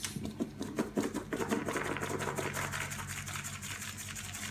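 A fine-mesh metal sieve shaken quickly by hand, a fast, even rattle as powder sifts off the candy cream centres inside it.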